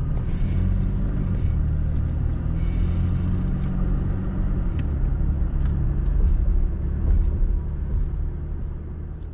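Car running steadily, a low engine hum over road rumble.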